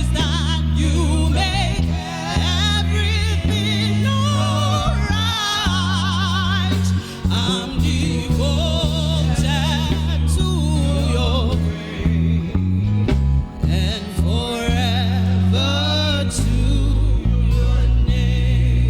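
Gospel worship music: a solo voice singing wavering, vibrato-laden ad-lib runs without clear words, over sustained low instrumental chords that change every second or two.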